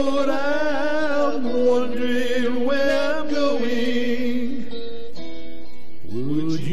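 A male voice sings a slow ballad, holding long notes with vibrato, over guitar and a backing track. The voice drops out about four and a half seconds in while the guitar carries on, and singing starts again near the end.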